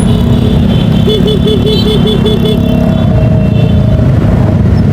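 Riding a motorcycle in traffic: a steady rush of wind and road noise on the rider's microphone, with the engine running underneath. A wavering tone sounds for about a second and a half, starting about a second in.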